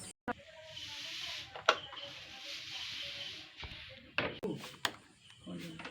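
A few light clicks and knocks over a faint hiss, with no engine running yet.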